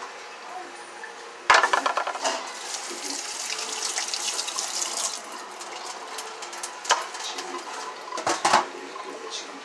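Tap water running and splashing into a stainless steel sink while a stem and then leaves are rinsed under it by hand. There is a sharp clatter about a second and a half in and a few knocks near the end as a plastic tub is handled against the sink.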